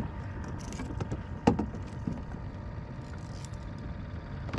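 A few knocks against a kayak's hull over a low, steady rumble; the loudest, a single sharp knock, comes about a second and a half in.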